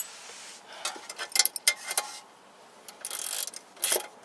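Irregular metal clicks and taps of a hand wrench working a fastener on a car's tie rod end, with a brief scrape about three seconds in and a sharper click near the end.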